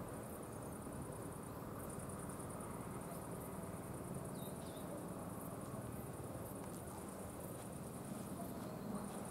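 Crickets chirring: a steady, finely pulsed high-pitched trill that breaks off briefly about two seconds in and again near the end, over a faint low rumble.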